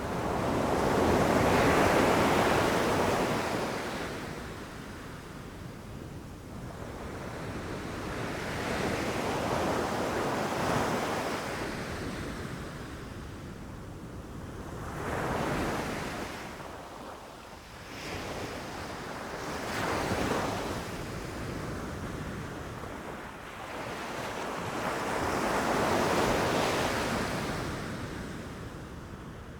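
Ocean waves rushing in and crashing in five slow surges, each swelling and fading over several seconds, the loudest about two seconds in.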